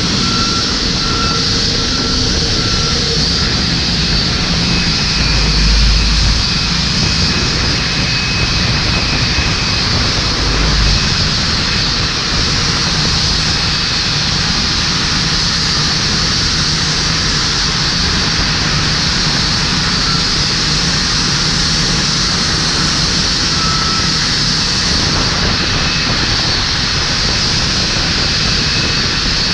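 Boeing 787-9 jet engines running steadily, a constant high rushing whine heard from right under the aircraft's nose, with a couple of low rumbles in the first ten seconds.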